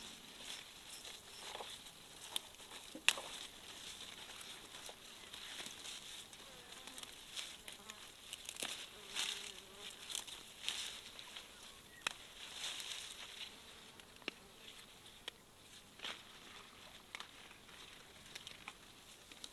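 Insects buzzing steadily, with a faint drone of a flying insect passing around the middle, and scattered short sharp snaps and rustles of pepper plant leaves and stems being handled.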